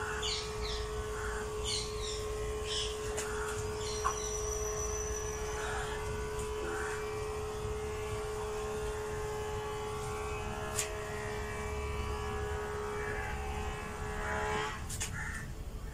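Whiteboard marker squeaking in short strokes as lines and letters are drawn, over a steady hum holding one tone that stops shortly before the end.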